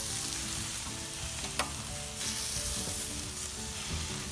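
Marinated chicken quarters sizzling steadily on a charcoal grill, with a single sharp click about a second and a half in.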